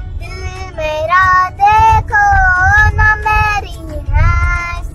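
A young girl singing, holding long notes that waver in pitch, inside a car with a low steady rumble beneath.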